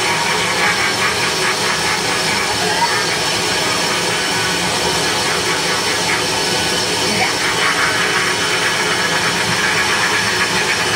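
Live harsh-noise set: a loud, unbroken wall of electronic noise and hiss, with a faint rapid flutter in the upper range near the start and again about seven seconds in.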